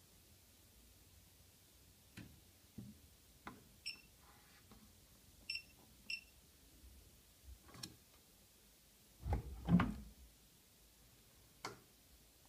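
Three short electronic beeps from a Siemens iQ700 washing machine's control panel as its buttons are pressed, among scattered soft clicks. A heavy double thump a little past the middle is the loudest sound.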